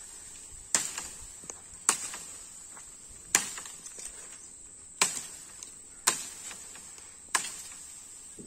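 Manga bamboo stems being chopped with a blade: six sharp strikes, roughly one every second and a half, over a steady high-pitched insect drone.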